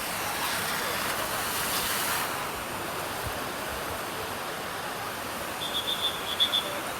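Steady rush of flowing and splashing water from aquapark water features, louder and hissier in the first two seconds. A few short high-pitched chirps sound briefly near the end.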